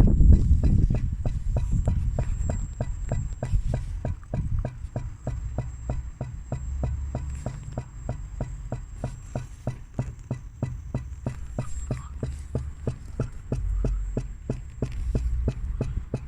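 BMW E60 520d diesel engine running, with a rapid, evenly spaced ticking from under the inlet manifold: a strange noise whose cause the owner cannot find.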